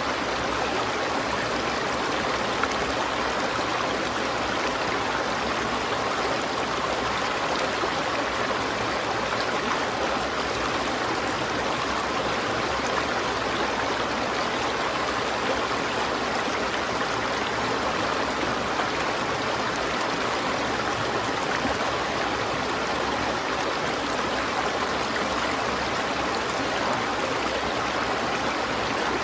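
River water flowing over rocks, a steady rushing and gurgling.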